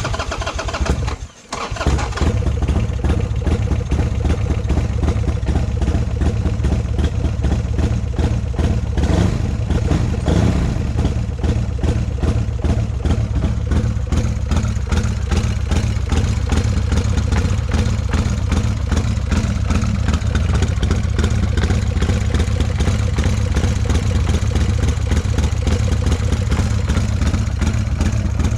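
Buell X1 Lightning's air-cooled V-twin starting up: it catches, falters briefly about a second in, then settles into a steady idle. The engine has just been refilled with 15W-50 full synthetic oil after an oil change.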